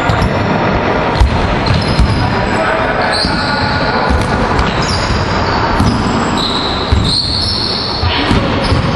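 Basketballs bouncing on a hardwood gym floor with repeated sharp thuds, mixed with short high sneaker squeaks, echoing in a large sports hall.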